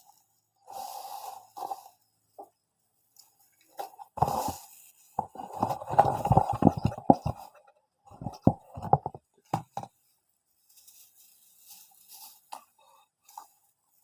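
Handling noise from unboxing: irregular rustling of packaging, with a run of knocks and thumps in the middle.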